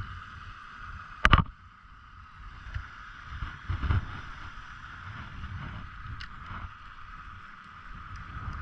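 A sharp knock about a second in, with a softer thump near four seconds, over a low irregular rumble and a steady high hum.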